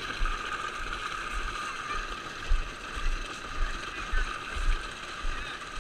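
A child's battery-powered ride-on toy quad whirs steadily as its electric motor and plastic gearbox drive it along a dirt trail, with irregular low bumps.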